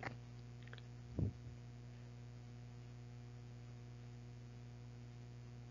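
Steady low electrical hum on the recording, with one short low sound about a second in.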